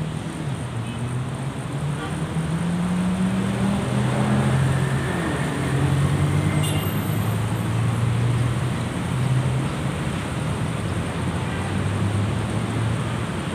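Motor engines running, with a low hum that rises and falls in pitch over a steady rumble. A faint click comes about halfway through.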